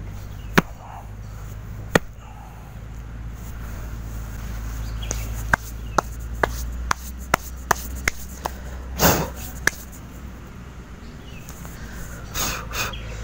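A string of sharp knocks: two spaced ones early, then about ten coming at roughly two a second between five and ten seconds in, one of them longer and heavier, over a steady low hum.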